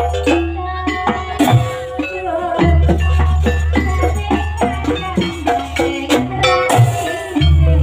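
Traditional Banyuwangi barong ensemble music, played live: quick struck, pitched percussion and drum strokes over a deep, sustained low tone that drops out briefly about two and a half seconds in and again near the end.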